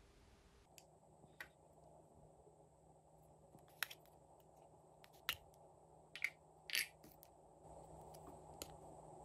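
Small plastic cases clicking and snapping as lip-balm spheres and cat-shaped plastic caps are handled and pulled open: a series of sharp, irregular clicks, one a little longer about two-thirds of the way through.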